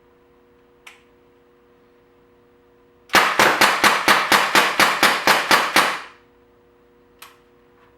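Crosman 1077 FreeStyle CO2 air rifle fired semi-automatically, about a dozen sharp shots at roughly four a second, emptying its 12-shot pellet clip in about three seconds. A light click comes before and after the string.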